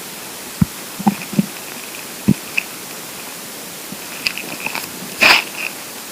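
An empty, hungry stomach gurgling: a few short low pops and squelches in the first half, then a busier run of gurgles about four seconds in, with the loudest and longest one a little after five seconds.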